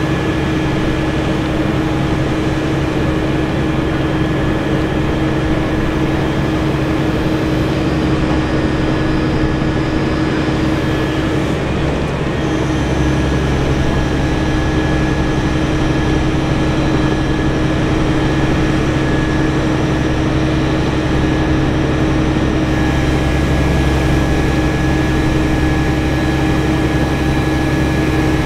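A heavy engine running steadily at a constant speed, with a low rumble and a steady hum; the low rumble grows a little louder about twelve seconds in.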